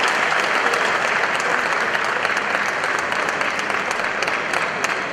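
Crowd applauding: dense clapping that slowly thins toward the end, where single claps stand out more.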